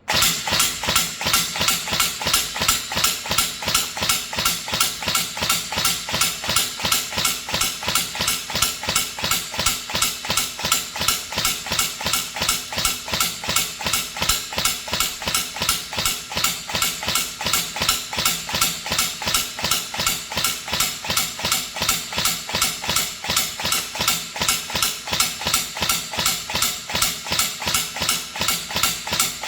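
INF M4 14.5-inch battery-powered replica rifle firing shot after shot at an even rate of about three a second. This is a test firing of the newly repaired circuit, which had made the rifle fire on its own as soon as the battery was connected.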